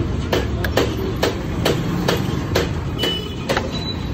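Sharp metallic clicks, about two a second, from a socket wrench working a nut on the motorcycle's rear frame, over a steady low rumble.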